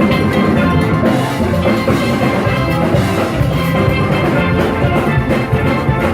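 Music with drums.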